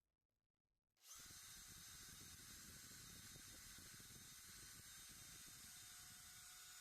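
Electric hand drill fitted with a knife-sharpening attachment, starting up about a second in and running steadily at top speed with a high whine, faint because the sound is turned down.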